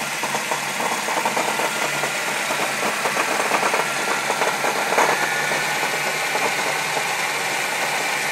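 1995 Saturn SL2's 1.9-litre twin-cam four-cylinder engine running with a steady, rapid knocking rattle and a louder knock about five seconds in. This is the rumbling from the bottom of the engine that turned out to mean the engine needed rebuilding.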